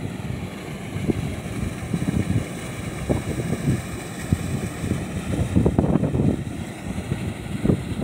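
Water rushing down a concrete channel, a steady hiss, with wind buffeting the microphone in uneven gusts.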